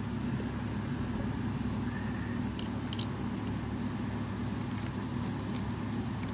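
A steady low background hum, with a few faint light clicks of small plastic parts being handled.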